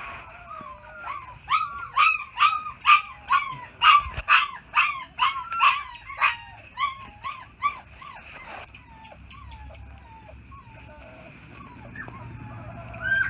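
Young puppy crying in a quick series of high whimpering yelps, each rising then falling, about two or three a second, then tailing off into fainter whimpers.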